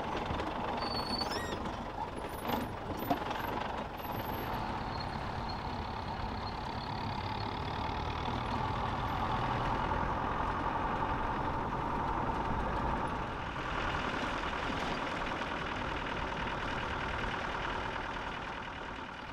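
Open-sided safari 4x4 driving along a dirt track: a steady engine drone with road rumble from the tyres.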